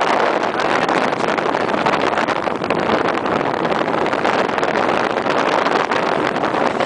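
Strong wind blowing across the camera microphone: a loud, steady rushing with no engine tone in it.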